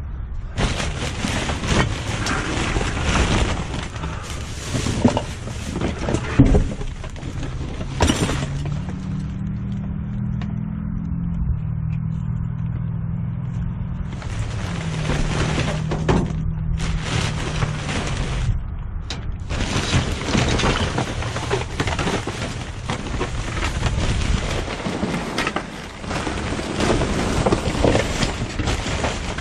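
Clattering and rustling of salvaged items, salvaged lights among them, being handled and packed, with many sharp knocks. A steady low hum runs underneath from about nine to fifteen seconds in.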